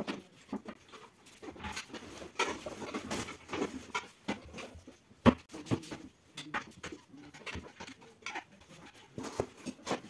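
Flat-pack furniture panels and metal fittings being handled and set together on a hard floor: irregular knocks, taps and scrapes, with one sharp knock about five seconds in.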